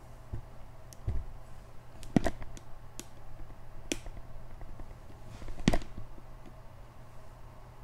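A few scattered sharp knocks and clicks from a phone camera being set down and steadied on a hard surface. The loudest come about two seconds in and just before six seconds, over a low steady hum.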